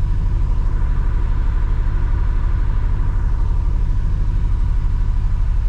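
Side-by-side UTV engine running at a low, steady speed: a constant low rumble with a quick even pulse and a faint steady whine above it.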